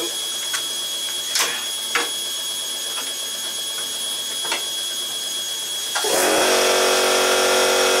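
Repaired Bosch front-loading washing machine being started: a few sharp clicks, then about six seconds in the machine starts running with a steady, louder hum and whir.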